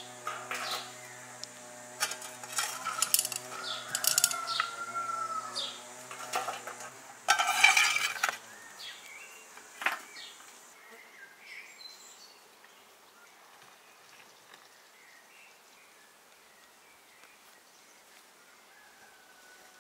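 Metal tongs and a metal scoop scraping and clinking as wood ash is raked out of a clay mud oven onto a stone slab, with a louder run of scraping about seven seconds in. The scraping stops about ten seconds in, leaving faint bird chirps.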